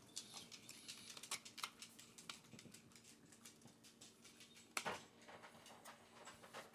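Faint, irregular small clicks and ticks, with one louder click about five seconds in, over a faint steady hum.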